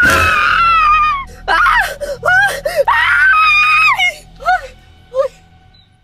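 A person screaming in fright: a long high shriek at the start, a run of shorter cries, another long shriek about three seconds in, then a few short yelps that fade out.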